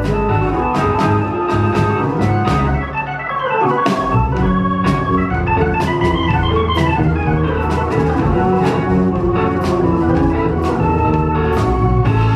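A rock band playing live, with an electric organ in the style of a Hammond carrying sustained, shifting chords and some sliding notes over a steady bass line and drums with regular cymbal hits.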